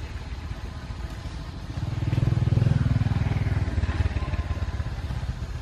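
A motor vehicle's engine passing by: a low, pulsing engine hum that grows louder about two seconds in, peaks, and fades after about four seconds.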